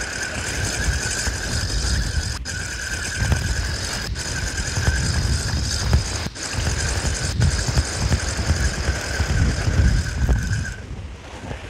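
Wind buffeting the microphone in a gusting low rumble, with a steady high-pitched whine alongside that cuts off abruptly near the end.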